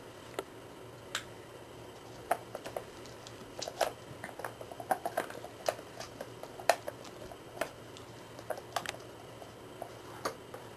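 Irregular light clicks and knocks of hard plastic as a puppy noses and paws at the yellow plastic cups of a Paw Hide dog puzzle toy, trying to get at the treats underneath. The clicks come in scattered clusters, thickest through the middle, with one sharper knock a little past halfway.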